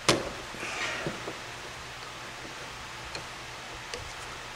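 Hand work on small metal parking brake hardware: a sharp click just after the start, a brief light scraping just under a second in, then a few faint small ticks over a steady low hiss.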